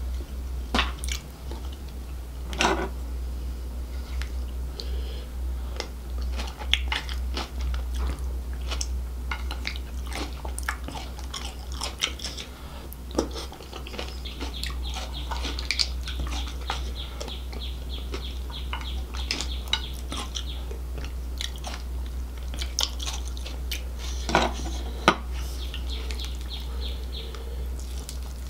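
Close-miked eating of crab and lobster in gravy: wet chewing and biting with frequent crunchy clicks and cracks, over a steady low hum.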